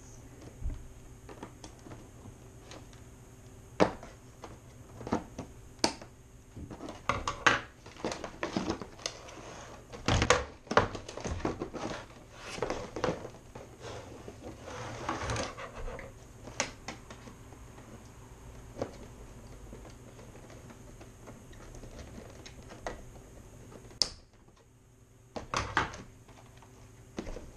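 Unboxing noises: scissors snipping at plastic toy packaging, then plastic water blasters being pulled from a cardboard box and set on a table. Irregular sharp clicks and knocks, with a busier stretch of rustling and clattering in the middle and a few louder knocks near the end.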